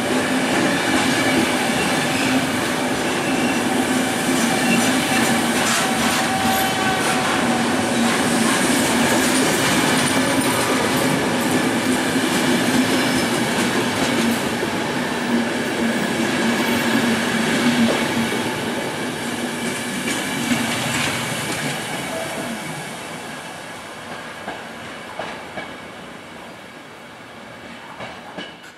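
Intercity Notte passenger coaches rolling past on the rails, wheels rumbling and clattering over rail joints. The sound fades steadily over the last third as the train draws away.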